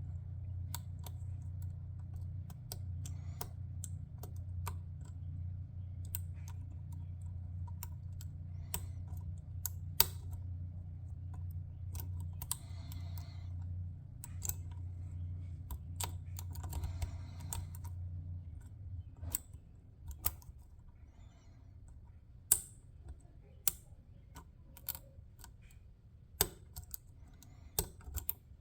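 Lock picks clicking and scraping against the pins and warding of a Master Lock LOTO 410 padlock: irregular sharp clicks, some louder than others, over a low steady hum that fades out about two-thirds of the way through.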